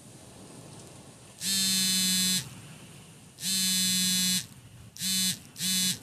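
A harsh electric buzz at one steady pitch sounds four times: two buzzes of about a second each, then two short ones near the end.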